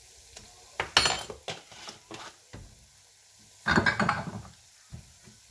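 A spoon and glass spice jars clinking and knocking: a run of short sharp knocks a little after the first second, then a longer clatter just before four seconds in. Underneath is a faint sizzle of masala paste frying in oil in an aluminium pressure cooker.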